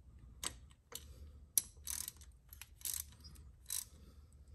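Irregular metallic clicks and short rasps from a ratchet on a long socket extension, about six in all, as a new spark plug is run into the engine's cylinder head.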